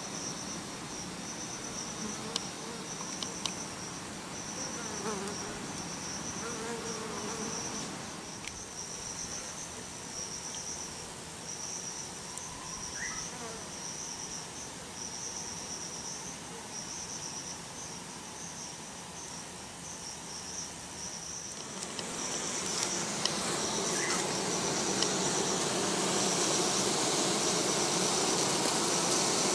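Outdoor insect sound: a steady, high, pulsing chirp runs throughout. About two-thirds of the way in, it grows louder, joined by the buzz of Japanese honeybees at the hive entrance.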